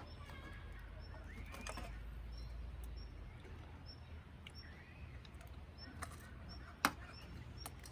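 Faint bird calls over quiet outdoor background, with one sharp click about seven seconds in.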